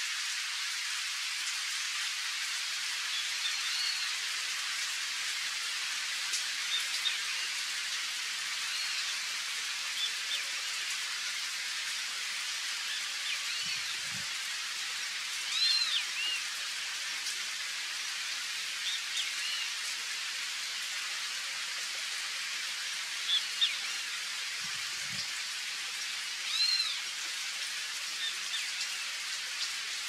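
Steady summer rain falling on river water and riverside forest, an even hiss. A bird gives short, high, arching chirps every few seconds over it.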